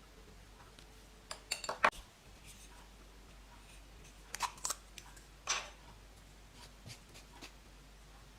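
Slime being pressed and pulled by hand, giving clusters of sharp clicks and pops about a second and a half in and again around four and a half seconds, then a few softer ones.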